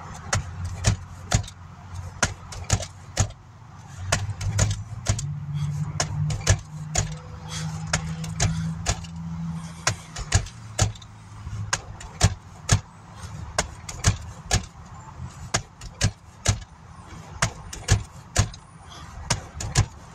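Low steady hum of a pickup truck heard from inside the cab, swelling slightly partway through, with sharp, irregular clicks or taps about twice a second.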